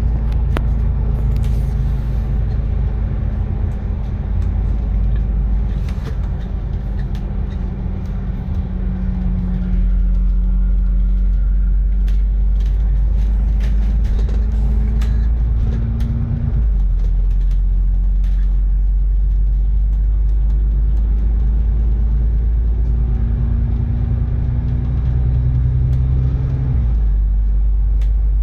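Double-decker bus engine and drivetrain heard from the upper deck: a steady low drone whose pitch climbs slowly and drops sharply twice, about sixteen seconds in and near the end, as the bus changes up a gear. A few light clicks and rattles come through the cabin.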